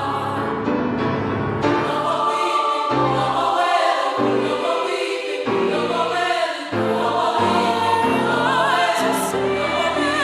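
Women's choir singing in full harmony, with vibrato on the high held notes.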